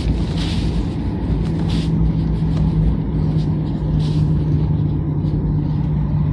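Jet airliner cabin noise just after landing: a steady low engine rumble with a constant hum, as the aircraft rolls and taxis.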